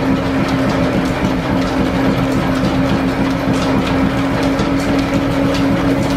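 Old flat-belt-driven lathe running under power while a large twist drill bores into metal: a steady mechanical hum with one constant tone, and faint irregular ticks from the cut.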